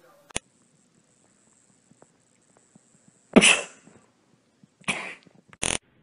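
A loud sneeze-like burst about three and a half seconds in, then two shorter ones near the end.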